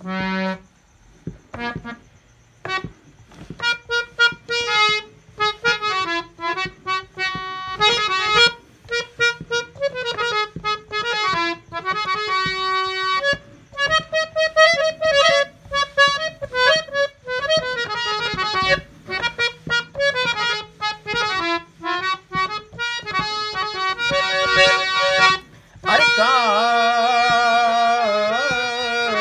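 Hand-pumped harmonium played solo: a melody of separate reed notes, some quick and short, some held, over a faint steady low drone. Near the end a voice joins in, singing long wavering notes.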